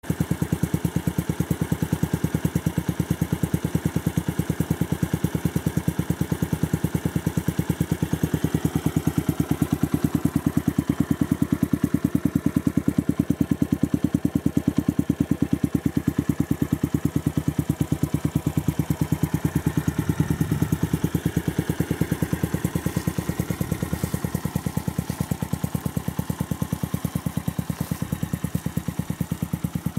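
Skyteam Dax Club mini motorcycle's single-cylinder four-stroke engine idling through an NHRC aluminium upswept exhaust, a steady, even pulsing beat.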